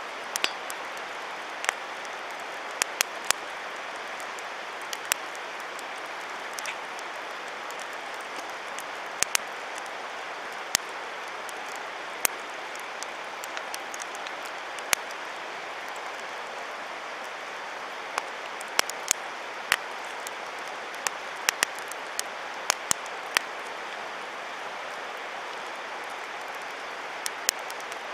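Wood campfire crackling: sharp, irregular pops and snaps over a steady rushing hiss.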